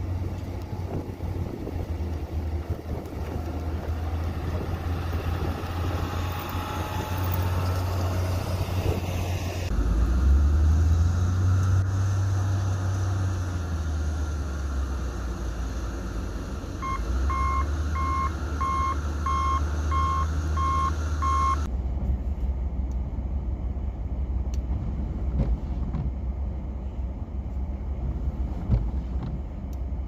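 Snow-clearing equipment at work, a plow truck and a wheel loader, their heavy diesel engines running with a steady low hum. For a few seconds in the middle a reversing alarm beeps steadily, about one and a half beeps a second. The last third is a duller low rumble.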